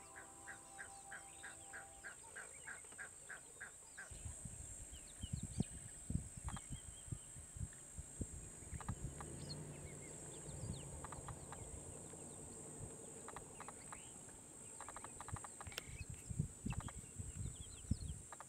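Geese at a waterhole calling faintly: a quick, even series of about three honks a second at first, then scattered calls and chirps. Underneath are a steady high hiss and low rumbles and knocks.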